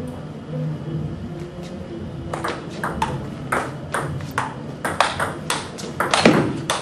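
Table tennis rally: the ball clicking sharply off the paddles and the table, about two to three hits a second, starting about two seconds in, with the hardest hits near the end.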